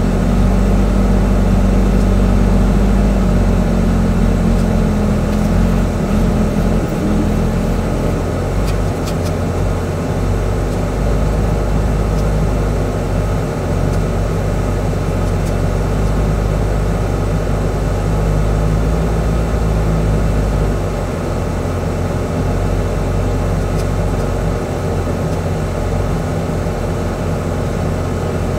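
Semi truck's diesel engine running under load as it climbs a gravel grade, heard from inside the cab as a steady low rumble. The engine note changes about four seconds in.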